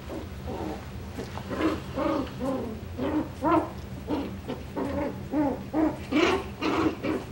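Coton de Tulear puppies play-fighting, giving a quick run of short, high yips and little growl-barks, about two a second and loudest near the end.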